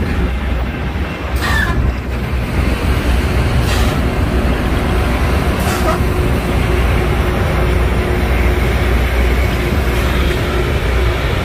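Loram rail grinder train passing close by: a heavy, steady rumble of the train with a harsh grinding noise as its grinding stones work the rail. A few brief sharp sounds in the first six seconds.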